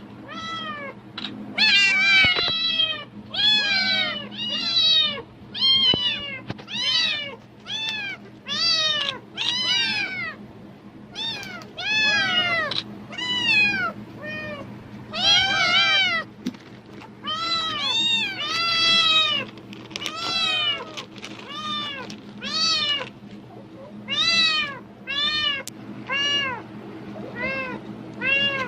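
A domestic cat meowing insistently, call after call at about one a second, each meow rising and then falling in pitch. It is the excited begging of a cat that takes the rustle of a plastic bag for a sign of food.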